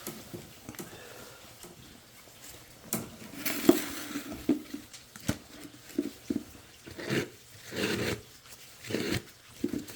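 Sewer-scope camera equipment being handled: scattered clicks and knocks with short bursts of rustling, the sharpest knock about four seconds in.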